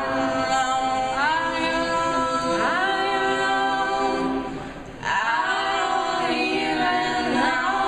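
A group of voices singing sustained wordless chords a cappella, sliding up into each new chord. Two long held phrases, with a short break about five seconds in.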